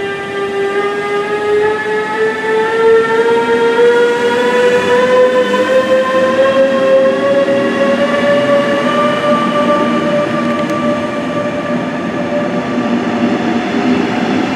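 DB Class 146 (Bombardier TRAXX) electric locomotive accelerating, its IGBT traction converter and three-phase traction motors giving a whine of several tones that climbs steadily in pitch and levels off near the end. Rolling noise from the double-deck coaches grows beneath it as the train passes.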